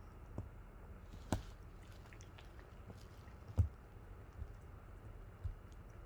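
A dog chewing on a duck wing: a few separate bites and crunches, about five in all, with the loudest crunch a little past halfway, over a quiet background of wet chewing.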